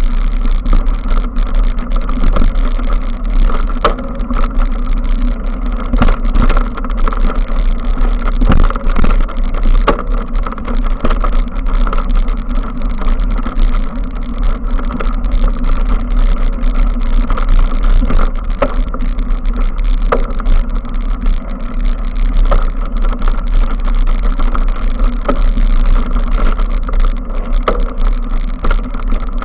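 Mountain bike riding over a dirt woodland trail, heard from a camera on the moving bike: a continuous low rumble of tyres and rattling, broken by frequent sharp knocks from bumps.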